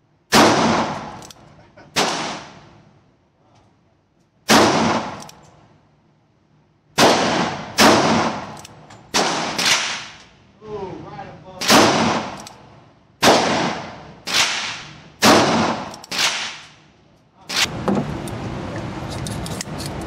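About a dozen gunshots from a Ruger New Vaquero single-action revolver in .45 Colt, a second or two apart, each with a short echoing tail in the indoor range. Near the end the shooting stops and a steady hiss remains.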